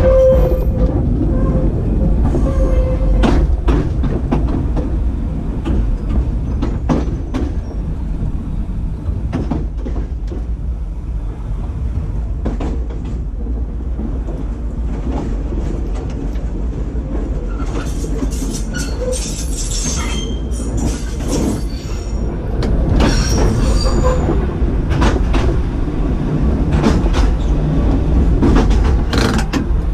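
W7-class electric tram car 1017 running along its track, with a steady rumble and scattered clicks of the wheels over the rail. High wheel squeal sounds on a curve from about 18 to 21 seconds in, and again briefly a little later.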